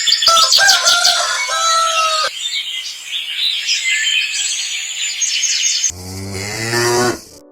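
Farmyard sounds: birds chirping and calling, then a cow mooing once, a long low moo starting about six seconds in.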